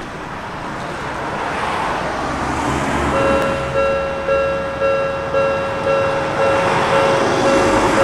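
Japanese railway level crossing's electronic warning bell starting up about three seconds in and ringing at about two strikes a second, warning of an approaching train. Under it, steady street traffic noise.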